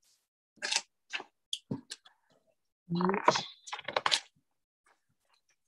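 A few short clicks and rustles, like typing or handling papers, with a brief snatch of a voice about three seconds in, picked up over a video call.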